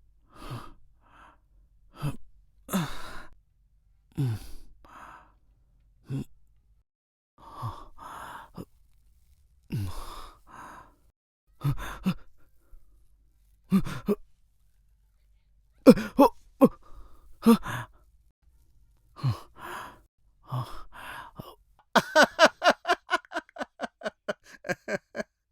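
A man's emotional vocal sounds: short sighs and moans falling in pitch, one every second or two, then a quick run of short stuttering sob-like breaths, about three or four a second, near the end.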